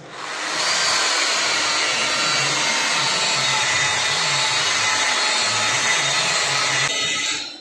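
Electric polisher with a foam polishing pad running at steady speed, buffing the painted sheet-metal door of a cabinet: an even motor hum with a faint high whine. It spins up just after the start and stops near the end.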